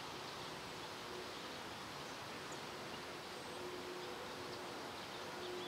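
Faint steady outdoor background hiss, with a faint hum that comes and goes and strengthens a few times.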